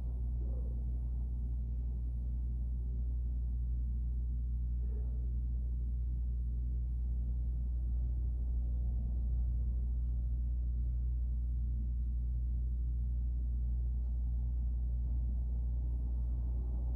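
Steady low hum, with two faint, brief sounds about half a second and five seconds in.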